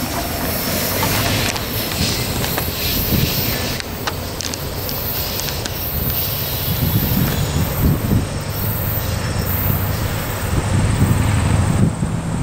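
Diesel locomotive hauling a passenger train: the engine rumbles louder as it nears, and the wheels squeal on a curve.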